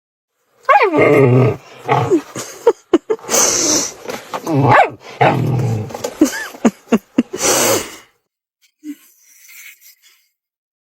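A dog vocalising loudly in a run of growls and grumbling moans, some sliding down in pitch like a whine, stopping about eight seconds in.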